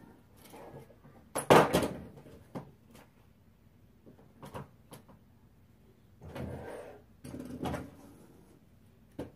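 Irregular knocks, clatters and brief rustling of objects being handled and set down, the loudest clatter about one and a half seconds in.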